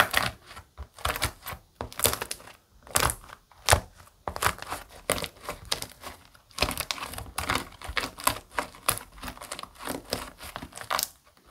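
Iceberg slime being pressed and kneaded by hand, its dried crust crackling and crunching in a dense run of irregular crisp crackles.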